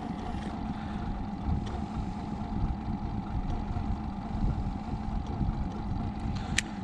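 Steady hum of a boat motor over a low rumble, with one sharp click near the end.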